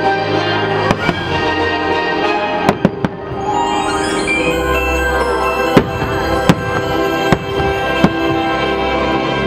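Fireworks bursting in sharp bangs over continuous orchestral show music. There is a quick cluster of bangs about three seconds in, then single bangs spaced a little under a second apart in the second half.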